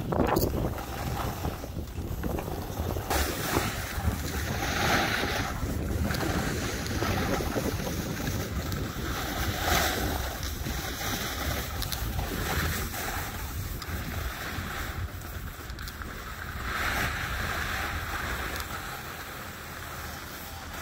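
Wind rushing over a phone microphone while skiing downhill, with the hiss of skis scraping across groomed snow rising and falling through several turns. A sharp knock right at the start, from handling the phone.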